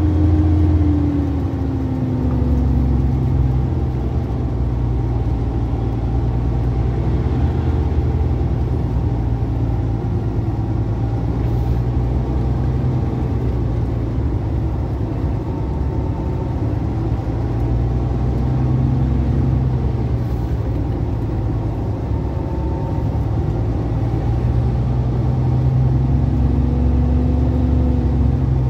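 Heavy cargo truck's engine running steadily, heard from inside the cab on a mountain descent; its note drops about a second in and then rises and falls slightly.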